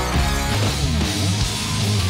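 Rock music with electric guitar, loud and continuous.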